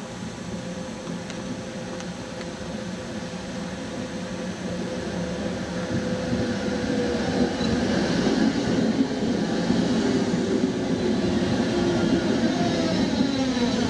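Prague Tatra T6A5 tram running in on street rails, growing louder as it comes close. Its motor whine falls in pitch as it slows to a stop alongside.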